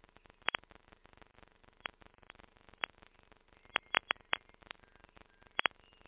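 Glitchy, grainy digital audio from a failed low-quality rendering of a song: about a dozen sharp clicks and pops at irregular intervals over a faint crackle, with a dull, cut-off top end.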